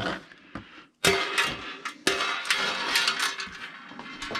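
Metal rack hardware clinking, knocking and scraping as a cantilevered shelf is mounted in an equipment rack, with a couple of single clicks first and then a dense run of knocks from about a second in.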